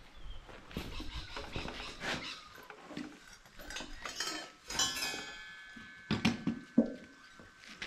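Metal foundry tools clinking and scraping against a steel pot. About five seconds in, one strike rings on, and a few dull knocks follow.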